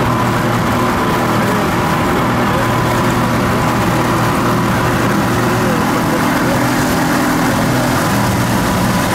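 Small boat's outboard motor running steadily at cruising speed, with water rushing in its wake.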